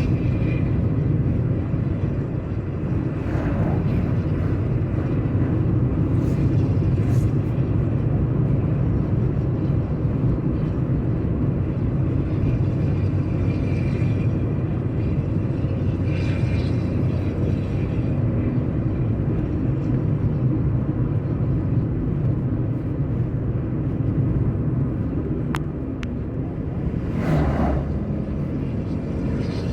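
Volkswagen Constellation truck's diesel engine running under way at a steady speed, a deep even rumble, with a brief louder whoosh near the end.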